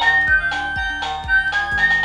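Music: a bright, chime-like electronic melody over a steady thumping beat of about two to three beats a second.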